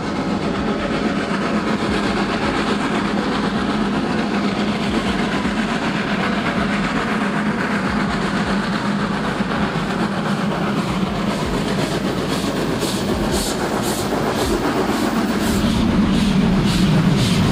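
Ty2 steam locomotive (the Polish designation of the German Class 52 2-10-0) running with its train, a continuous rumble with a steady low hum. From about halfway a regular beat of about two to three strokes a second sets in, and the sound grows louder near the end as the engine comes close.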